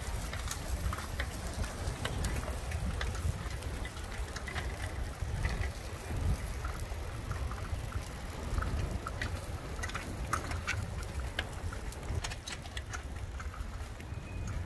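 Strong wind buffeting the phone's microphone during a bicycle ride, a steady gusting low rumble, with scattered light clicks and ticks on top.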